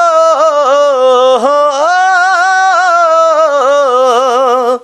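A man singing unaccompanied, holding one long note with small ornamental turns and wavers. The note sinks slightly lower over its length and stops just before the end.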